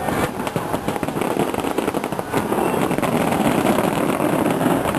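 Fireworks display: a dense, continuous barrage of shell bursts and crackling, with one sharper bang about two seconds in.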